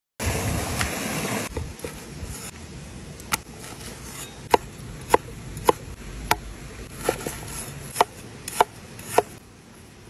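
A second and a half of rushing stream water that cuts off, then a cleaver chopping raw liver on a thick wooden board: about nine sharp knocks with a short woody ring, spaced half a second to a second apart.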